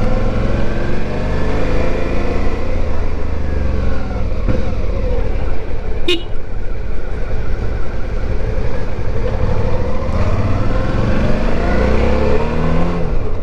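Suzuki V-Strom motorcycle's V-twin engine running as it rides at low speed, its note falling over the first few seconds and rising again later with the throttle. A short sharp click about six seconds in.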